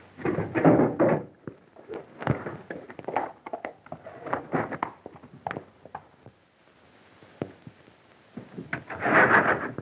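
Irregular footsteps, scuffs and knocks on wooden boards, with a single heavy thud about two seconds in and a longer burst of scuffling movement near the end.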